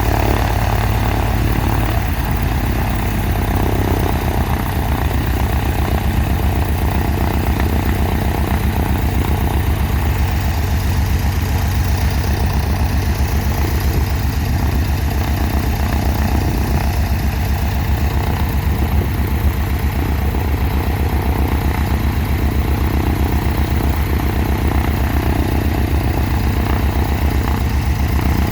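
Cessna 182's six-cylinder piston engine running steadily at low rpm during a ground run-up, on its first run after a new cylinder and a new exhaust system were fitted.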